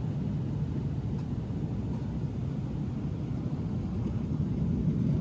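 Airliner cabin noise in cruise flight: a steady low rumble of engines and airflow heard inside the passenger cabin.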